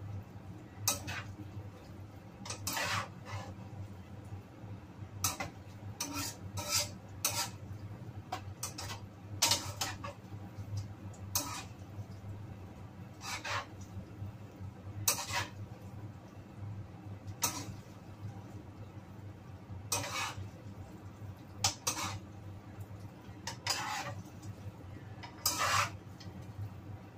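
A spatula scraping and knocking against a pan while stir-frying noodles, in irregular strokes every second or two, over a steady low hum.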